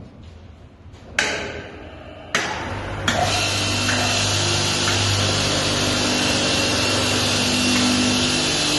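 Vertical belt grinder being switched on: a sudden start about a second in, a second step up a little over two seconds in, then from about three seconds the motor and abrasive belt run steadily with a low hum and a loud hiss.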